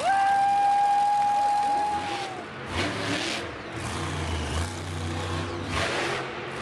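A loud, steady horn note that sounds for about two and a half seconds and then falls away. After it comes a monster truck's supercharged engine revving hard in surges as the truck pops up into a wheelie on the dirt.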